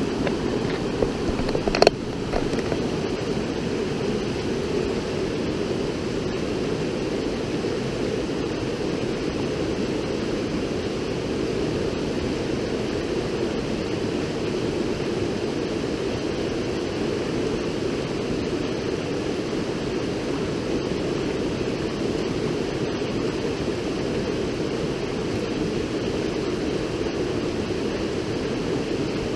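River water rushing steadily. A couple of short knocks come about two seconds in.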